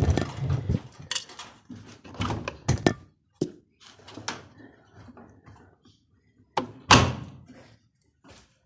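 Indesit washing machine with worn drum bearings banging: a run of irregular heavy thuds and knocks, with the loudest bang about seven seconds in.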